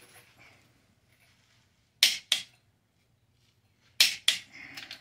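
Click-type torque wrench set to 110 lb-ft breaking over on a Ford 352 FE cylinder head bolt: two sharp double clicks about two seconds apart, the sign that each bolt has reached torque.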